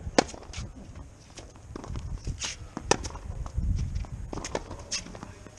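Tennis rally on a hard court: a racket strikes the ball sharply just after the start and again near three seconds in, with fainter distant hits and bounces between. Quick footsteps move across the court.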